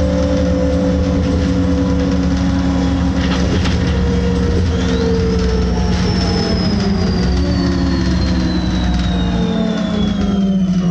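City bus heard from inside the passenger cabin, its engine and drivetrain whine falling slowly in pitch as it slows down. About halfway through, a high-pitched squeal, typical of braking, comes in and slides gradually lower.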